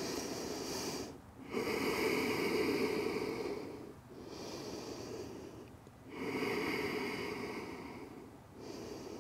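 A woman breathing slowly and deeply, resting in child's pose: several long breaths in and out, each lasting one to two and a half seconds, with short pauses between them.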